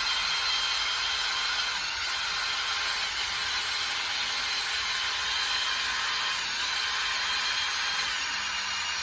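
Electric drill running steadily under load on rusty plow metal, a continuous rough whir with a faint high whine.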